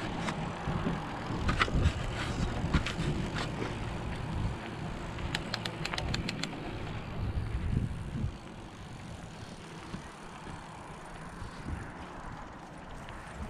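Mountain bike riding a dirt trail: rumble of tyres and wind noise, with sharp clicks and rattles from the bike over bumps and a quick run of clicks about halfway through. It gets quieter for the last third.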